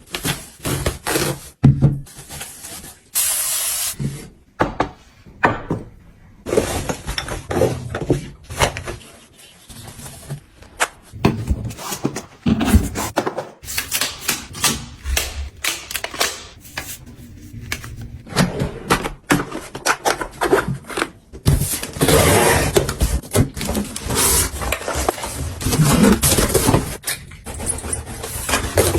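Close-up handling noises: a string of sharp clicks and taps mixed with stretches of rustling and hiss, the rustling thickest past the middle.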